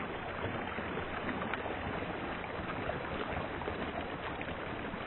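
Water pouring and splashing over seaweed-covered rocks: a steady, even rush of running water.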